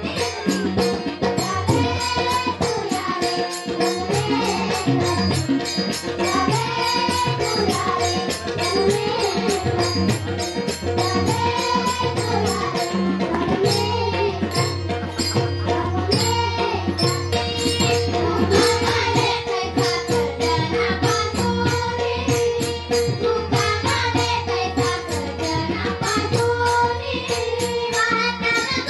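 Music: a steady drone under fast, dense percussion, with a melody that slides up and down in pitch.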